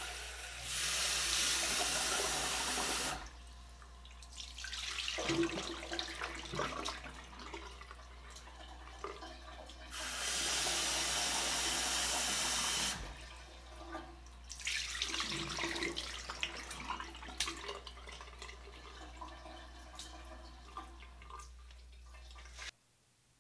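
Tap water running into a rice cooker's metal inner pot twice, about three seconds each time, with rice being swished and rinsed by hand in the pot between the fills.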